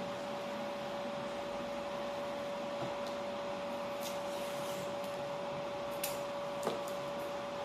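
A small electric motor whining steadily at one pitch over a hiss, with a few faint clicks about two-thirds of the way in.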